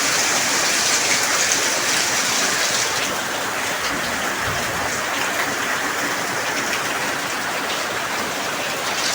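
Heavy rain falling steadily, a dense, even hiss of a downpour.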